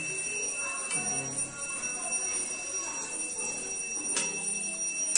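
Sliced onions frying in ghee in a steel kadhai, under a steady high-pitched whine, with a sharp clink of the spatula against the pan about four seconds in and another at the end.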